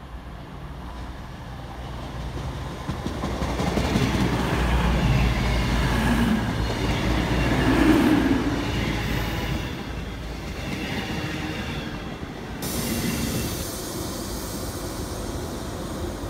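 CrossCountry diesel train running past along the platform, its engine and wheel noise swelling to a peak about eight seconds in and then easing off. About twelve seconds in the sound changes abruptly to a steadier hum with hiss.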